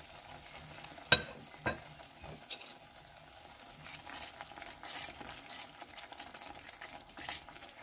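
Thick chilli sambal sizzling and bubbling in its oil in an enamelled cast-iron pot while a silicone spatula stirs through it, with scraping against the pot. Two sharp knocks come about a second in.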